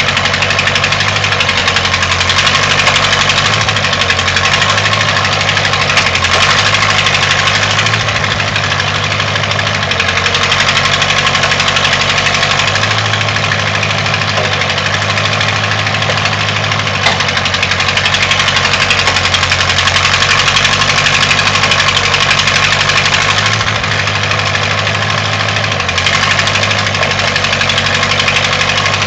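Engine of a 1958–59 Case 310-B backhoe running steadily, its note shifting a little now and then.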